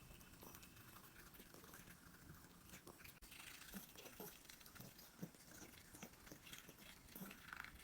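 Near silence: faint room tone with a few small, soft clicks in the second half.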